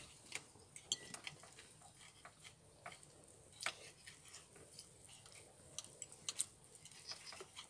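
Quiet eating sounds at a table: people chewing meat, with scattered small clicks and taps of a fork on plates, one a little louder about halfway through.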